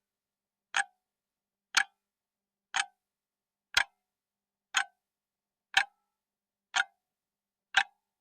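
Countdown-timer clock tick sound effect, one sharp tick a second with dead silence between, counting down the quiz answer time.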